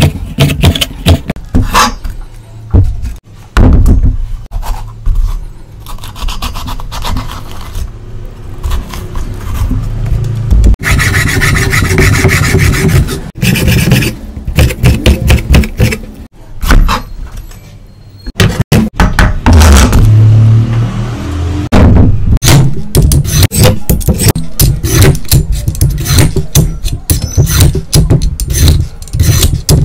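Kitchen knife slicing bell peppers on a bamboo cutting board: a run of scraping cuts and taps against the wood. Later a vegetable peeler scrapes along a carrot in quick, repeated strokes.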